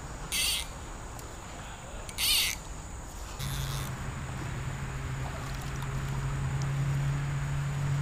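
Insect calling in short, high buzzing bursts, twice about two seconds apart, over the creek's outdoor background; from about halfway on a steady low hum joins in.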